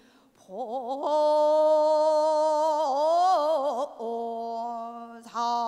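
Female pansori singer drawing out one long sung note after a short breath: the voice rises with vibrato into a held pitch, wavers and bends down around three seconds in, then settles on a lower steady note. It breaks briefly near the end before the next note.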